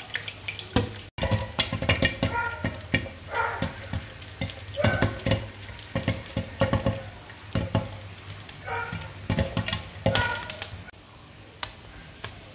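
Popcorn kernels popping in a covered pan: a rapid, irregular scatter of sharp pops that thins out near the end.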